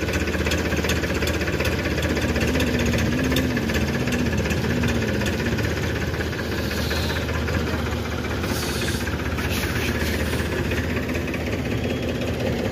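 Powertrac Euro tractor's diesel engine running steadily with a knocking clatter as the tractor pulls away and turns.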